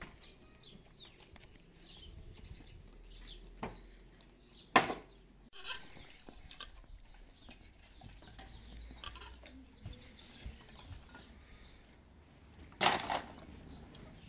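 Small birds chirping over a quiet farmyard background, broken by a sharp knock about five seconds in and a brief clatter near the end as split firewood sticks are dropped on the ground.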